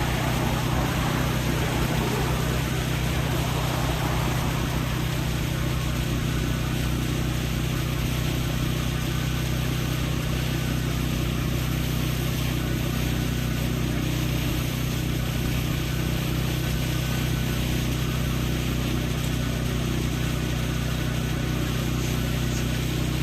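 Gasoline pressure washer engine running steadily at a constant speed, a low even hum with a hiss of noise above it.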